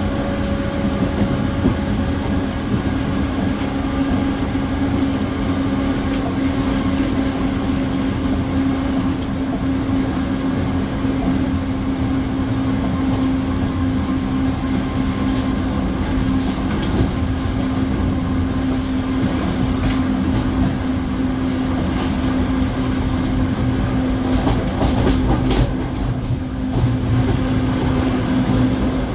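Série 2100 electric multiple-unit train running, heard from inside the car: a steady rumble with a constant droning hum. A few sharp clicks come through in the second half.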